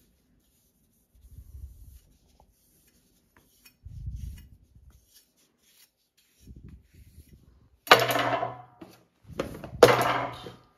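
A steel chef's knife clattering down onto a wooden tabletop, two loud clatters about two seconds apart in the second half, after a few soft handling thumps.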